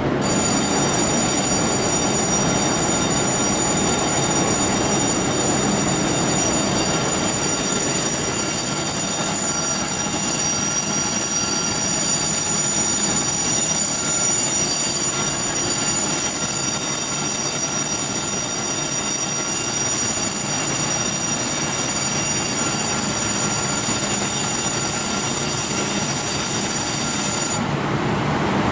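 Chu-Kuang Express passenger carriages rolling into the station under braking, giving a high, steady, many-toned brake squeal over a low rumble of the train. The squeal cuts off suddenly about a second before the end as the train comes to a stop.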